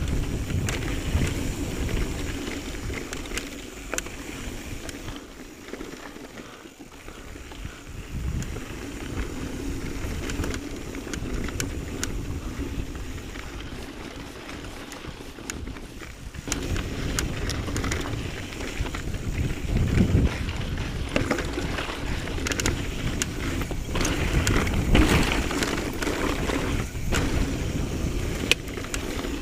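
Mountain bike riding over a rocky dirt trail: wind buffeting the camera microphone, tyres rolling over dirt and stones, and scattered rattles and clicks from the bike. It gets louder and rougher from about halfway through.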